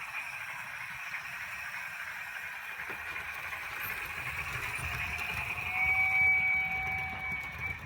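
Märklin 37182 S3/6 model steam locomotive's mSD/3 sound decoder playing running noise through its small speaker. About five and a half seconds in, a high, steady brake squeal joins and lasts about two seconds as the loco brakes. This is the loudest part.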